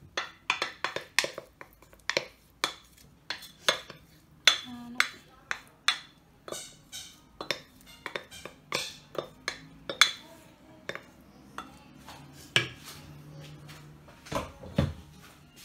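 Wooden spoon knocking and scraping against a pan and a ceramic baking dish as a cooked vegetable mixture is spooned out and spread. It is a quick, irregular run of sharp clacks that thins out over the last few seconds.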